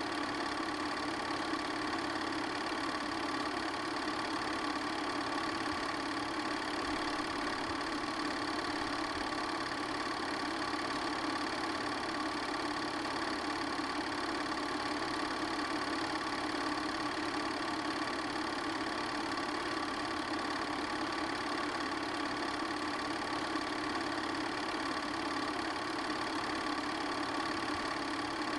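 8mm film projector running steadily: an unchanging mechanical whir with a few fixed tones.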